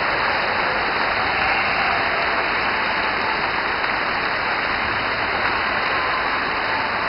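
Audience applauding: dense, steady clapping with no single claps standing out.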